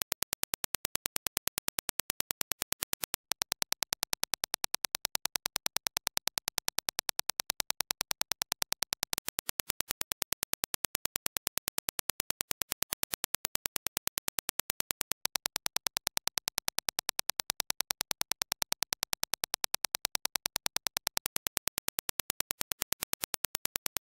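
Dirac impulse test signal: a rapid, even train of sharp clicks, about five or six a second, stepping slightly louder and softer every six seconds or so.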